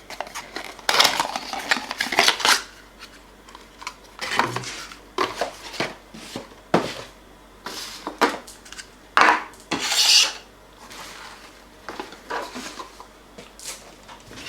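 Irregular hard clicks, knocks and short scrapes of plastic parts being handled: a camera speedlight and its diffuser and stand set down, fitted and moved about, about a dozen sharp clatters.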